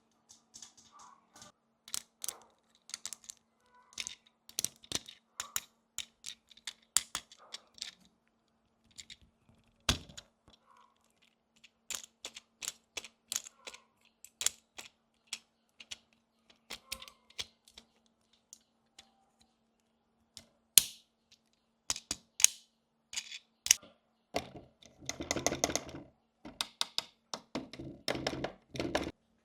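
Small hard plastic miniature toy pieces clicking and tapping as they are handled and set down, in irregular sharp clicks with an occasional heavier knock. Near the end come two denser stretches of rustling or scraping.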